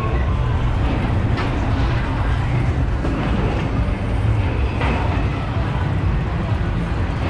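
Funfair ambience: a steady low rumble, with faint voices and two short knocks.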